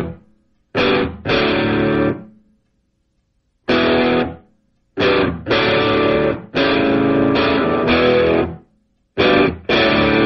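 Background music: a distorted electric guitar playing a stop-start riff of chords, each cut off sharply, with short silences between them.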